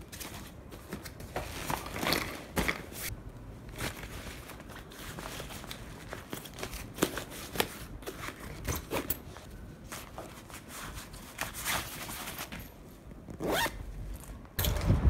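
Clothes and gear rustling and knocking as they are packed into a fabric bag, with a zipper being pulled near the end.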